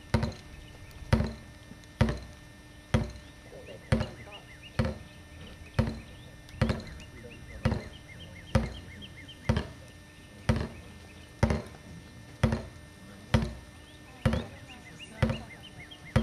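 A steady series of sharp knocks, evenly spaced at about one a second, each with a short ringing tail.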